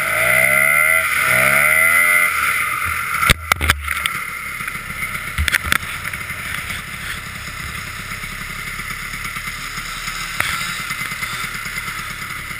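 Snowmobile engine revving twice, its pitch rising each time, then a few sharp knocks, after which the engine settles to a steady idle.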